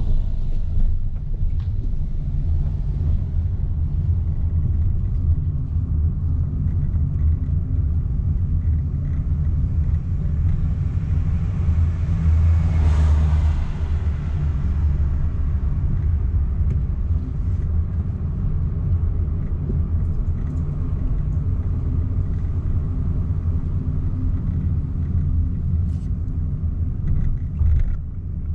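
Car driving, heard from inside the cabin: a steady low engine and road rumble, with a hiss that swells and fades about halfway through.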